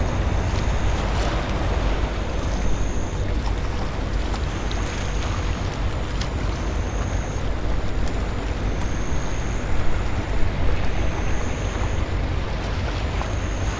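Outdoor ambience dominated by a low wind rumble on the microphone over an even hiss of water. A short, thin, high chirp repeats about every two seconds.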